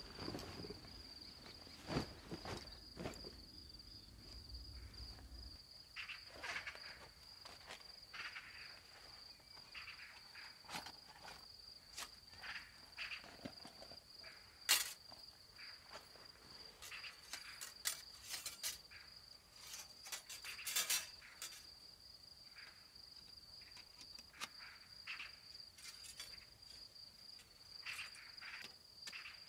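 Crickets chirping in a steady high trill throughout, with scattered clicks, taps and rustles of a portable firebox stove being set up. The loudest is one sharp click about halfway through.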